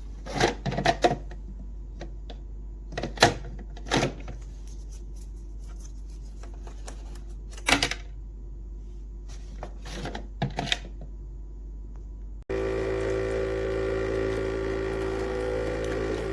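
Lavazza Classy Mini capsule coffee machine: a few sharp clicks and knocks of its lid and controls being worked over a low hum, then about twelve seconds in its pump suddenly starts with a loud, steady buzzing hum as it brews.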